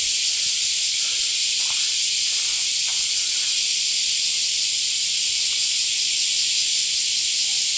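A loud, steady high-pitched hiss that does not change in level, with a few faint soft knocks in the first three seconds.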